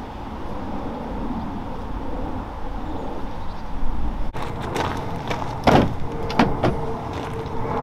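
Steady wind rumble on the microphone, then a few sharp knocks and handling noises as shot rabbits are laid on a pickup truck's plastic-lined tailgate, the loudest knock about three quarters of the way through.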